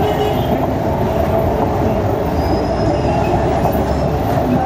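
Steady road noise of a motorcycle riding through city traffic: the engine running under a constant rush of wind buffeting the microphone.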